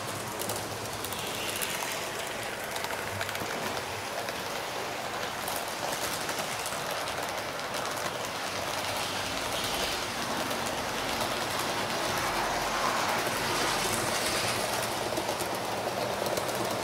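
Model train running on the layout track: a steady rolling noise with fine clicking of wheels on the rails, getting a little louder in the second half.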